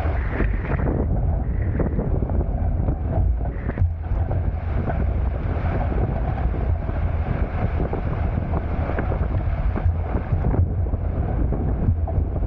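Steady heavy wind buffeting on the microphone aboard a Hobie Tiger F18 catamaran under sail, over the hiss and rush of water along the hulls.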